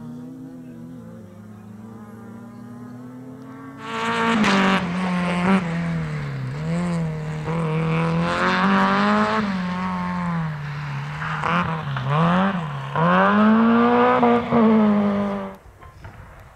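Rally car engine at high revs: faint and climbing at first, then suddenly loud about four seconds in. The revs rise and dip repeatedly through gear changes and lifts, then the sound cuts off suddenly near the end.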